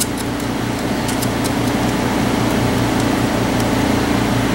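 A steady low machine hum, with a few faint light metallic ticks as a small retaining nut is fitted by hand onto an engine case.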